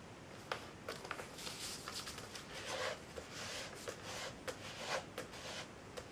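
A sheet of printer paper being folded and creased by hand: crisp rustling with small ticks and several short swishes as fingers press and slide along the folds.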